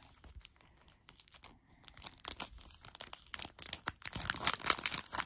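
Packaging being torn open and crinkled by hand, a crackly rustle that starts about two seconds in and grows louder.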